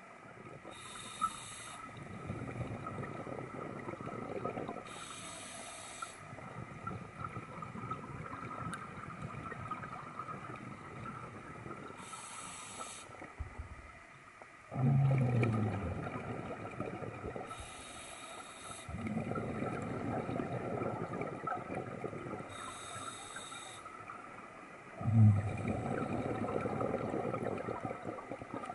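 Scuba diver breathing through a regulator underwater, about every five to six seconds: a short hiss on each inhale, then a longer bubbling rush as the exhaled air leaves. The exhales about 15 and 25 seconds in are the loudest and start with a brief low tone.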